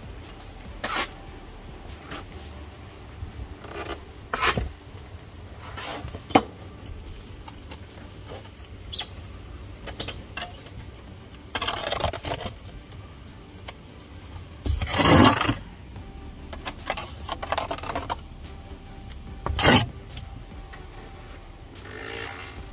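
Steel brick trowel working mortar: scattered clinks and taps of the trowel, with a few longer scrapes as mortar is spread along the top of the brick course, the loudest about halfway through.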